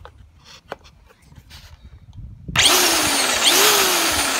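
A few light clicks of the trigger switch, then about two and a half seconds in the Black & Decker GH3000 electric string trimmer's motor starts and runs with a loud whir, its pitch sweeping up at the start and again about a second later. The motor running shows the repaired power switch now engages.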